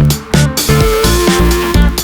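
Electronic dance music with a steady driving beat, heavy bass and synth notes.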